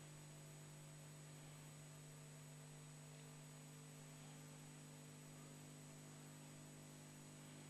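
Near silence: a steady low electrical hum over a faint hiss.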